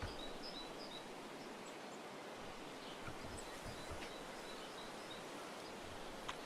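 Small birds giving short, high chirps, scattered and repeated, over a steady outdoor hiss, with a faint click or two.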